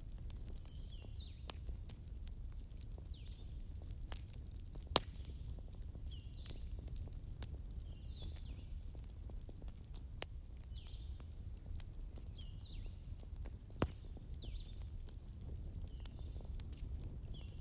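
Bonfire crackling with scattered sharp pops over a low steady rumble; the loudest pops come about five seconds in and near fourteen seconds. Birds call throughout with short repeated downward chirps, and a quick high trill comes about eight seconds in.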